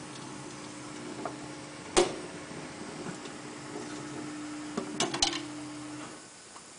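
Bright LC 885 automatic tyre changer's motor running with a steady hum, stopping about a second before the end. A single sharp clack comes about two seconds in and a quick run of clacks around five seconds.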